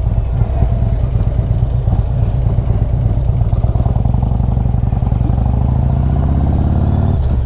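Harley-Davidson Street Glide's V-twin engine heard close up, rolling at low revs through a stop, then rising in pitch as it pulls away about halfway through.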